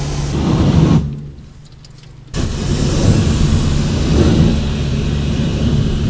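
Car engine running with steady road or engine noise; the sound falls away about a second in and comes back abruptly about a second later.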